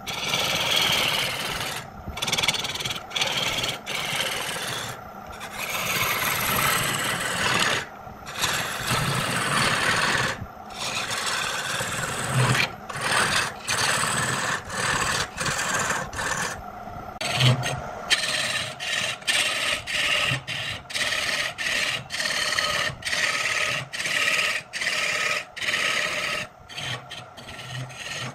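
Wood being worked by hand with a scraping, abrasive tool, a rasp or similar, in repeated strokes. The strokes are long at first and become shorter and quicker, about two a second, over the last third.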